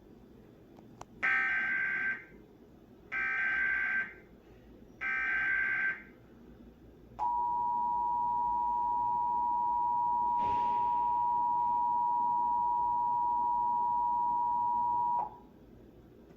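Three EAS SAME digital header bursts, each a warbling data tone about a second long, come about a second apart. Then the EAS attention signal sounds: a steady two-tone alert tone held for about eight seconds, which cuts off abruptly.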